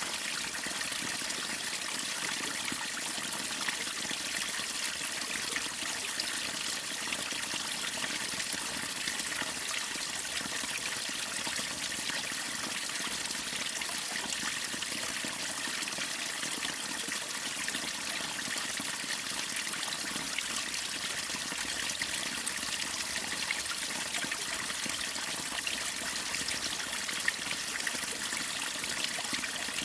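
Waterfall and stream water splashing and rushing steadily: an even, bright hiss with little low rumble.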